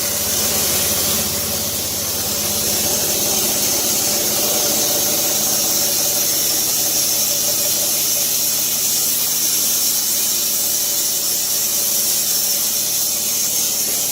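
Dack SMP 13/85 band sawmill running steadily, engine and spinning band blade, while the drive belt is slackened to slow the blade before shutdown.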